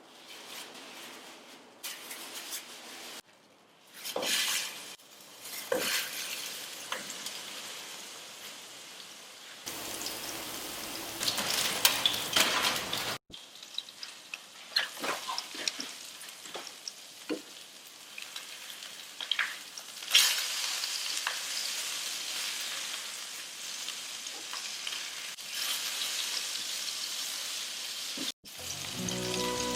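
Food sizzling and frying in a hot pan, with a steady hiss and scattered clicks and scrapes of a utensil. The sizzle breaks off abruptly a few times where the footage is cut.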